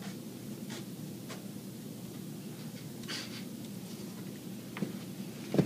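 Quiet room tone with a steady low hum, faint scuffs and rustles, and two sharper knocks near the end.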